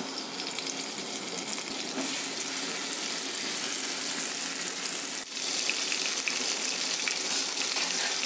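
Marinated chicken leg pieces sizzling in hot oil in a non-stick kadai as they are laid in to fry. The sizzle gets louder about two seconds in and, after a brief dip about five seconds in, louder again.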